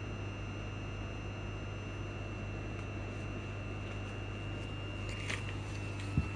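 Cabin hum of a Class 334 electric train standing at a platform: a steady low hum with a constant high-pitched whine from its onboard equipment. A few light clicks come about five seconds in, and a short knock near the end.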